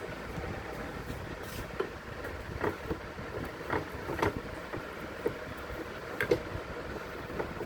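Scattered light clicks and knocks of hand tools and metal parts being handled while the marble cutter is taken apart, over steady background noise.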